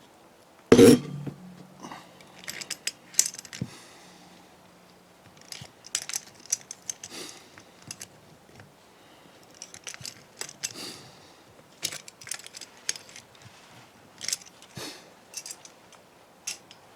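Metal tools and engine parts clinking and clattering during engine disassembly. A loud metal clank a little under a second in rings on for a few seconds, followed by scattered light clicks and clinks.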